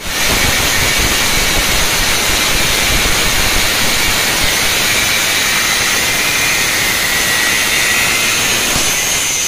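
Handheld angle grinder with an abrasive cut-off disc cutting through a steel reinforcing bar: a loud, steady high whine over a harsh grinding rasp.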